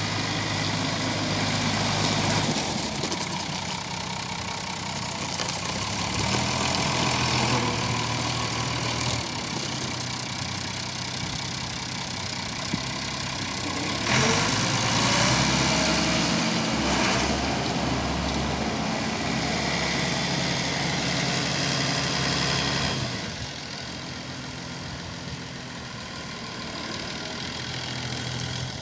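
Massey Ferguson 399 tractor's six-cylinder diesel engine running as the four-wheel-drive tractor drives slowly around. The engine note swells and rises in pitch about halfway through as the tractor passes close, then drops lower as it moves off near the end.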